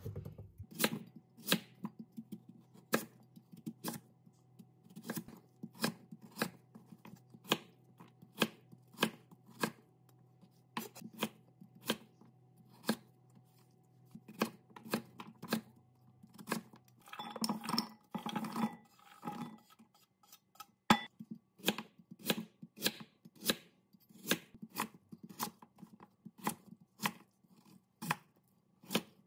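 Knife chopping on a cutting board in separate sharp strokes, roughly one or two a second, with a busier stretch of handling noise about two-thirds of the way through.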